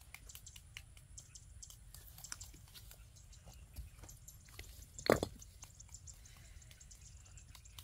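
Faint chewing and small scattered clicks of hands picking at grilled fish and herbs on banana leaves, with one short louder knock about five seconds in.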